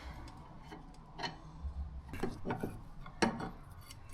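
Scattered metallic clicks and taps from a spanner turning an adjustable suspension arm to take camber out, a few irregular knocks a second apart.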